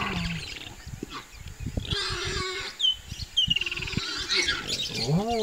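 Common warthogs fighting: many short low grunts and snorts, with birds chirping and trilling in the background. Near the end a longer rising call begins.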